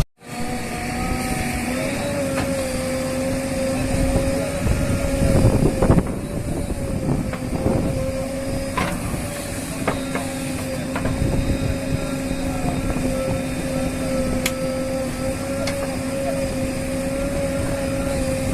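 Heavy diesel earthmoving machinery running steadily: a low rumble under a steady, slightly wavering whine, with a few sharp clanks.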